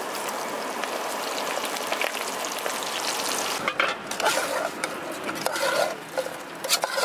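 Battered squid deep-frying in a wok of hot oil: a steady, dense sizzle. After about three and a half seconds the sizzle breaks off and light clinks of a metal ladle against a pot follow.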